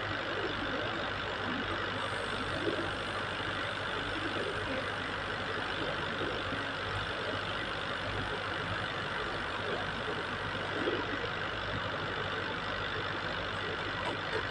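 Steady mechanical hum, like an engine or motor running, over faint outdoor background noise, with no distinct events.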